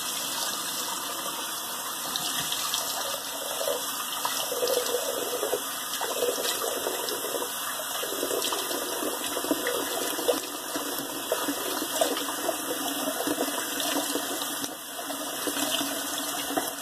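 Bathroom sink tap running steadily, with irregular splashing as water is brought up to the face to re-wet it before shaving.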